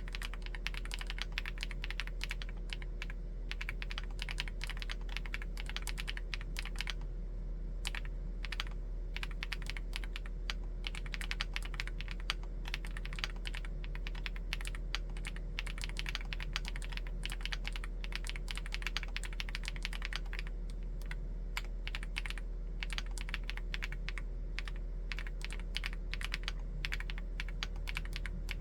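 Continuous typing on a Chilkey ND75 full-aluminium 75% mechanical keyboard with Gateron EF switches: rapid, uneven keystrokes with short pauses between runs, over a faint steady low hum.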